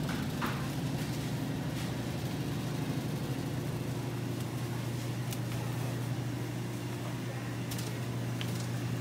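Steady low mechanical hum from the refrigerated meat display cases, with a few faint clicks.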